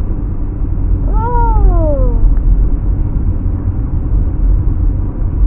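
Steady road and engine rumble inside a moving car's cabin on the highway. About a second in, a single drawn-out falling vocal sound, like a long descending "oooh", sweeps down in pitch over about a second.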